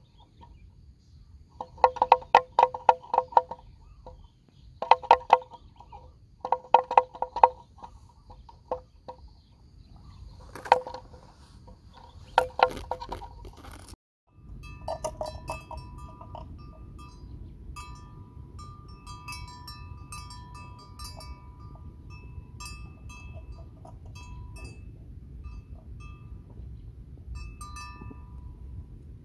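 Bells clanking in short bursts of rapid strikes, about five bursts in the first half. After a sudden break near the middle, a lighter, steadier tinkling of bells over a low rumble.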